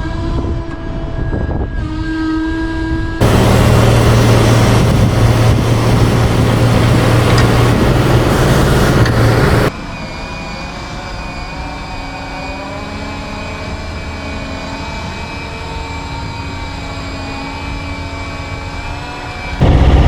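Hydraulic loader crane working, with hard cuts between two power sources. In the louder stretches a diesel engine hums low under load. In the much quieter stretch in the middle, an electric power unit runs with a steady high whine.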